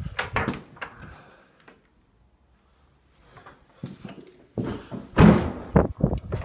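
An interior door being handled: a few clunks at the start, then after a short quiet spell a run of louder knocks and thuds, the loudest a heavy thud about five seconds in.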